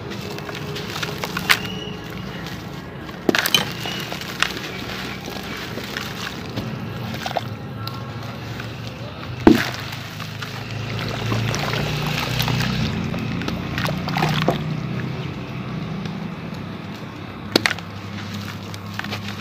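Hands crumbling a water-soaked sand-cement lump in a bucket of water: gritty wet crunching with water sloshing and dripping, and a few sharp knocks of pieces, the loudest about halfway through.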